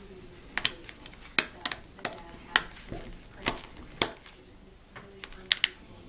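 Plastic back cover of a Samsung Galaxy S2 being pressed onto the phone, its clips snapping into place. About eight sharp clicks come at uneven intervals.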